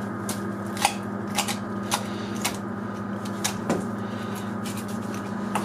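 Knife tip working around the hip joint of a deer hind leg, giving irregular sharp clicks and scrapes as the blade catches on bone, over a steady hum.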